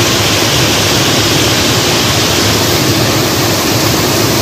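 Waterfall cascading over rock ledges into a pool: a loud, steady rush of water.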